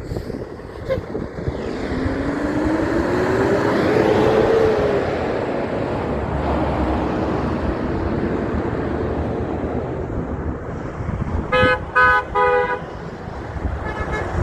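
A heavy truck drives past, its engine note rising as it accelerates and the noise peaking as it goes by. Near the end the horn sounds three short blasts.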